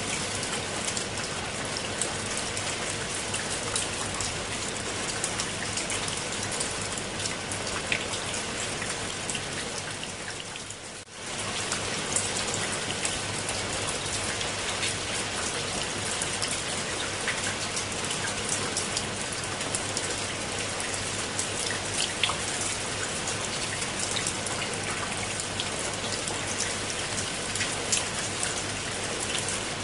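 Steady rain falling on leaves and wet stone steps, with many sharp individual drop hits. The sound fades briefly about eleven seconds in and then comes back at the same level.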